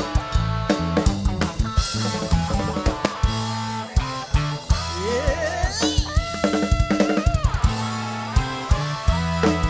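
Background music with a drum-kit beat and bass line; a sliding tone rises about five seconds in, holds briefly, and falls away.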